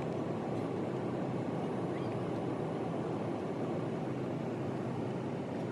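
Steady airliner cabin noise, the engines and airflow heard from inside the passenger cabin as an even, low rushing hum with no change.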